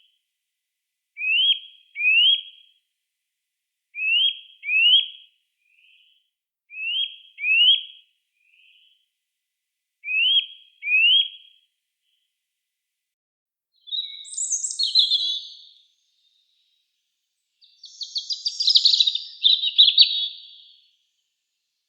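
Small songbirds calling: pairs of short rising whistled notes repeated every few seconds, then two bursts of busier, higher twittering in the second half.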